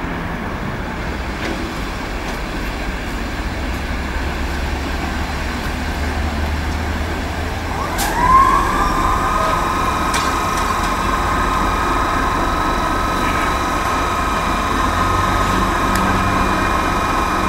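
Locomotive standing with a steady low rumble. About eight seconds in there is a click, then a whine that rises quickly and holds steady at two pitches, as an onboard electric machine such as a blower or compressor runs up to speed.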